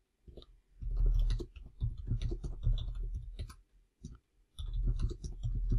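Typing on a computer keyboard: runs of quick keystrokes with short breaks, including a brief pause about four seconds in, as numbers are entered.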